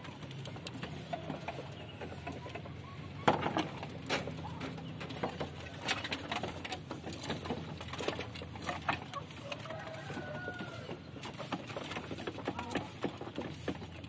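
Domestic pigeons cooing as they feed, with many sharp taps of beaks pecking grain off a corrugated roof and brief wing flutters. The loudest knock comes about three seconds in.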